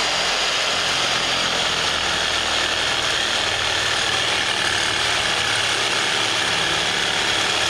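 Reciprocating saw fitted with a wood-cutting blade, running steadily with a fast, even rattle as it cuts through steel exhaust pipe.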